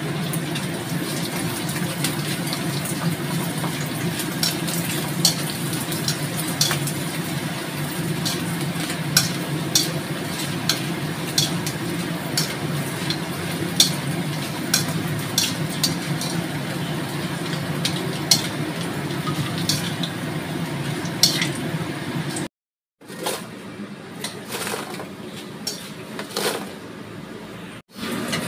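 A metal ladle clinking and scraping against a stainless-steel wok as sliced shallots and garlic fry in oil, over a steady low hum. About 22 seconds in the sound cuts out briefly and comes back quieter, with a few more clinks.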